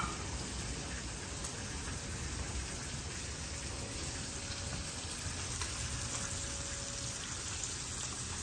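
Thick-cut bacon frying in a pan, a steady sizzling hiss, with one sharp click at the start.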